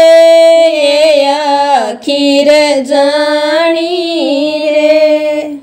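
A woman singing a Rajasthani folk bhajan, drawing out the closing words in long held notes with slides in pitch. There are two phrases, with a brief break about two seconds in, and the voice dies away at the very end.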